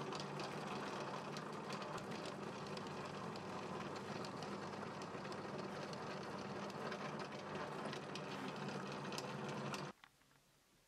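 Small drill running with a 2 mm bit, boring side-dot holes into the edge of a guitar fretboard: a steady motor hum with many small ticks, which stops suddenly near the end.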